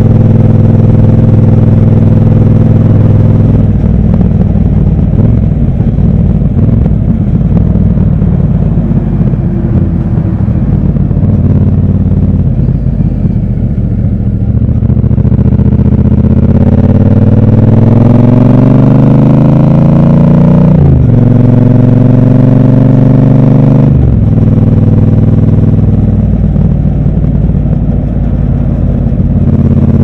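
Triumph 1200 parallel-twin motorcycle engine on the move: running at a steady cruise, then off the throttle for a stretch. It then accelerates with a rising pitch, with two quick upshifts a few seconds apart in the later part, before settling into a steady pull.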